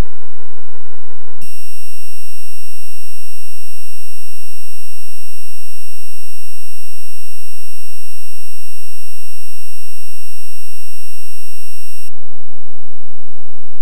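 Music sped up to an absurdly extreme tempo, so that it collapses into harsh, very loud steady electronic tones. A pitched tone switches abruptly, about a second and a half in, to a dense full-range buzz, which near the end cuts to a lower steady tone.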